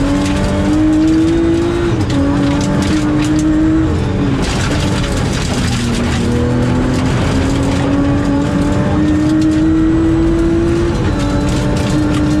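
Rally car's engine heard from inside the cabin, running hard on a gravel stage: its note climbs and drops back several times as the driver shifts up, over steady tyre and gravel noise from the loose road surface.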